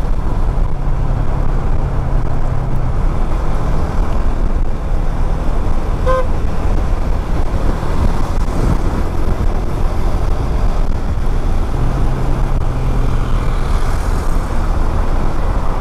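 Motorcycle riding in traffic: steady engine and road noise. A short horn beep sounds about six seconds in.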